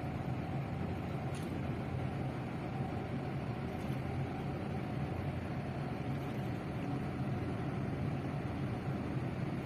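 Boat engine running steadily: an even low drone with a faint steady hum above it.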